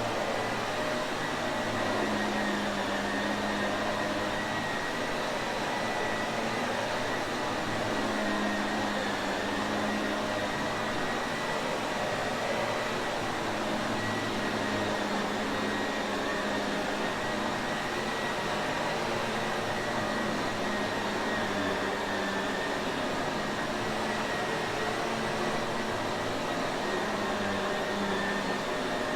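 Shark Navigator upright vacuum cleaner running steadily: a constant rushing hum of the suction motor with a thin high whine, the low tone wavering slightly.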